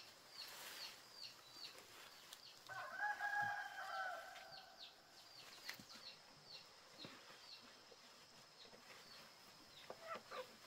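A rooster crows once, a call held for about a second and a half, about three seconds in, over a bird's short high chirps repeating every half second or so.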